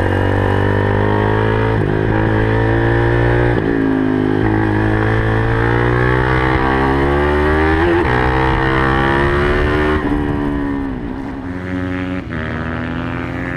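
2015 KTM RC390's single-cylinder engine through a Yoshimura dual undertail exhaust, revving up through the gears with the pitch dropping at each shift. About ten seconds in the revs fall away as the bike slows, then hold lower.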